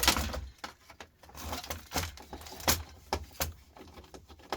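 Sharp clicks and clatter of plastic housings and circuit boards being handled and pried apart, about half a dozen knocks with a short scrape in between.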